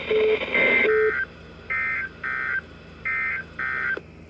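Emergency Alert System SAME data bursts: short, buzzy two-tone digital squawks, mostly in quick pairs, the end-of-message code that closes a Special Marine Warning broadcast. A brief low beep comes right at the start.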